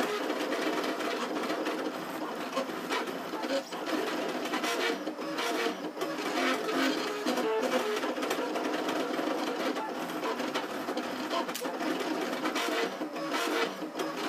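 Trinity Labs Aluminatus 3D printer at work: its stepper motors drive lead screws instead of belts, whining in short runs of tones whose pitch keeps changing as the print head moves.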